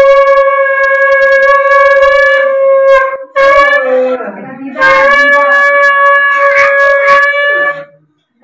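Conch shell (shankha) blown in two long, steady blasts, broken by a short wavering stretch a little over three seconds in; the second blast stops shortly before the end.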